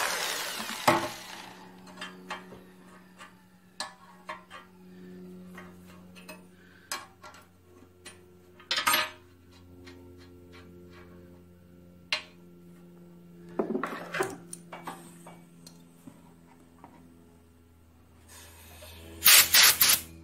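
Hand tools and metal bits being handled and scraped on a cast-iron engine block. Scattered clicks and knocks, a few scrapes, and near the end a loud run of three quick scrapes.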